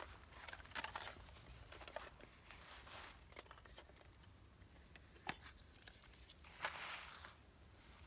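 Dry pine needles rustling and crackling as a tinder bundle is worked by hand, with scattered light clicks of handling. One sharp click comes about five seconds in, and a longer rustle near the end.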